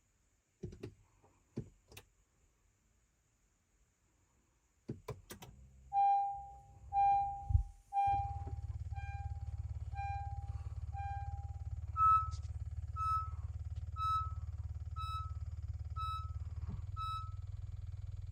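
Honda car's warning chime beeping once a second, a lower tone about six times and then a higher tone about six times, after a few clicks. A steady low hum starts about eight seconds in.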